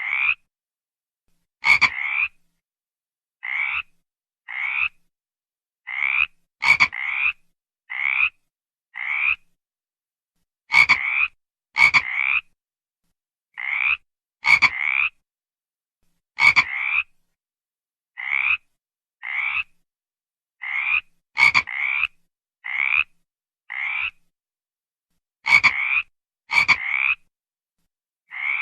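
A frog calling: a steady series of short croaks, each about half a second long, coming about once or twice a second with silent gaps between them, some opening with a sharp click.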